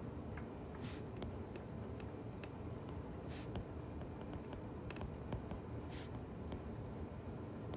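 Faint taps and short scratchy strokes of a stylus writing on a tablet screen, with a few light clicks scattered between them, over a steady low background hum.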